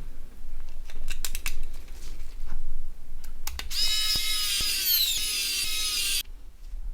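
Small clicks and taps of a Nokia 1100's plastic and metal parts being handled and fitted together. Then a high-pitched tone is held for about two and a half seconds and cuts off suddenly.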